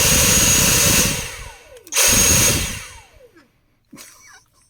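Dyson V6 vacuum motor whining up to full speed and running for about a second, then winding down with a falling whine. About two seconds in it is run again in a short burst and spins down once more. The motor that had seemed dead is running again.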